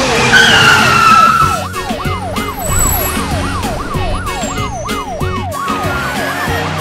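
Police car siren wailing in a fast rising-and-falling yelp, about three sweeps a second. A high screech that falls in pitch is the loudest sound during the first second and a half, and background music plays underneath.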